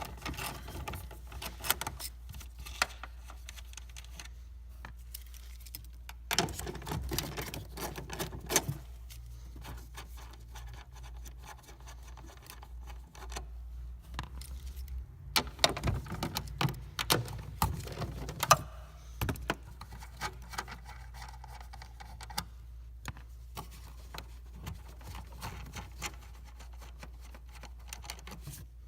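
A hand tool undoing the 8 mm nuts that hold a Honda Civic tail light, heard as bursts of rapid metallic clicking and clinking with pauses between.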